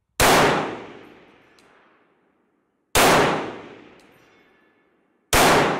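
Three rifle shots from a MAS 49/56 semi-automatic rifle in 7.5×54mm French, fired slowly about two and a half to three seconds apart, the last near the end. Each sharp report rings on for a second or more.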